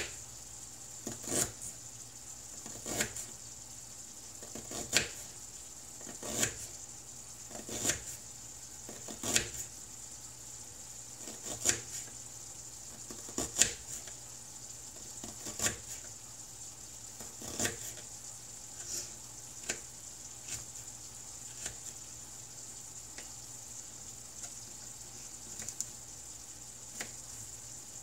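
Food frying in a skillet on an electric stove: a steady sizzle with sharp pops every second or two, which thin out and grow fainter in the second half.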